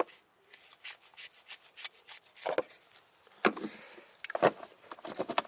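Scooter carburettor body being handled and knocked about to work a loose pilot jet free: irregular small clicks, knocks and scrapes, the loudest knocks about three and a half and four and a half seconds in.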